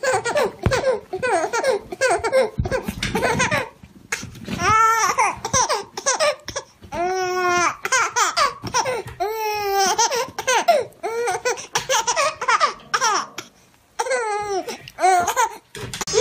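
Baby laughing hard in many short bursts of giggles and high squealing laughs, with a couple of brief pauses.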